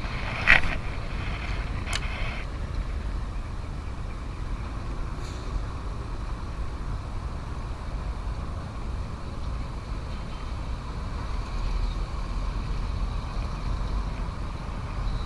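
Steady low rumble of wind and distant road traffic, with a short sharp swish about half a second in and a faint click near two seconds.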